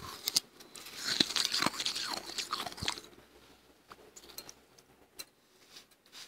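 Soft crunching of freezer frost being chewed, dense and crackly for about two seconds, then thinning to scattered small crackles.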